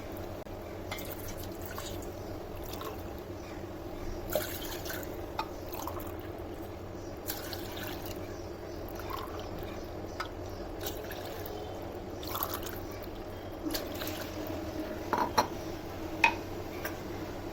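Water being poured glass by glass into a cooking pot, five glassfuls measured in as the base of a herbal decoction. A few short knocks of the glass are heard along the way.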